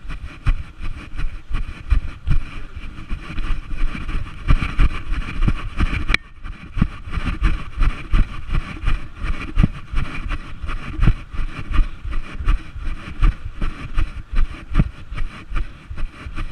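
Wind buffeting the microphone, an irregular low rumble of gusts over a steady hiss, with one sharp click about six seconds in.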